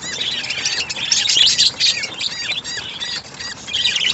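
Budgerigars chirping: a rapid run of short, high, repeated chirps, busiest around the middle.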